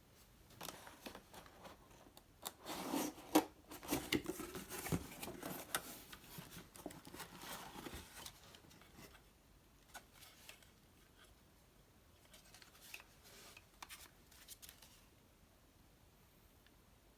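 Clicks and rustling scrapes of hard objects being handled, dense for the first half and sparse single clicks later; no motor runs.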